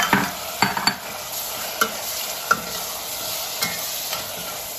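Marinated beef chunks sizzling in hot butter and oil in a stainless steel pot over high heat as they are stirred, with a spoon knocking against the pot several times.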